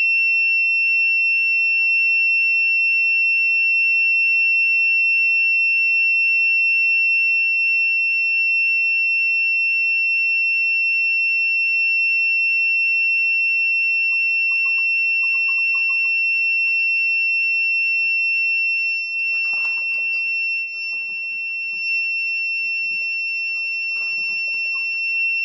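Digital torque adapter's buzzer giving one continuous high-pitched beep while torque is applied to a thread-locked flash hider, its alarm for reaching the preset torque. Faint creaks and clicks from the wrench and threads in the last several seconds.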